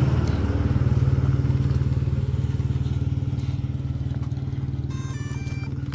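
A motor vehicle's engine idling steadily, a low pulsing hum that slowly grows a little quieter.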